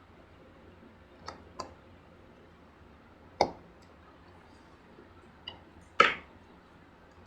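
Sharp clicks and taps from a laptop's casing and small parts being handled during reassembly: two light clicks about a second in, a louder tap near the middle, and the loudest click near the end.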